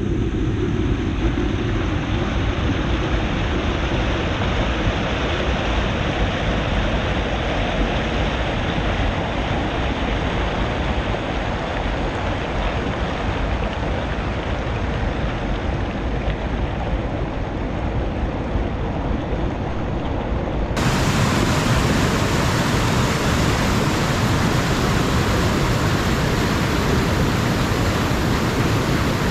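River water rushing in a small cascade over rocks, a steady, even rush at the low water of the dry season. About 21 seconds in it cuts to a louder, deeper rush of a fuller rapid.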